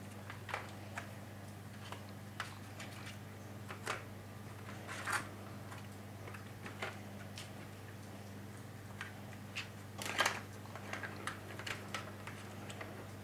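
Irregular light plastic clicks and knocks from a ball in a Catit Design Senses Play Circuit track as cats paw at it, loudest in a quick cluster about ten seconds in. A steady low hum runs underneath.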